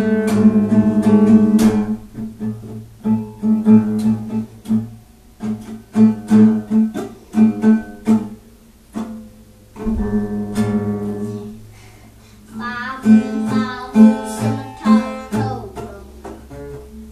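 Acoustic guitar strumming chords in a rhythmic instrumental break.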